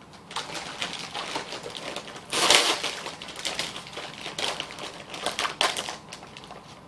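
Crinkling and rustling of plastic cookie packaging among small clicks and taps, with one louder crinkle about two and a half seconds in.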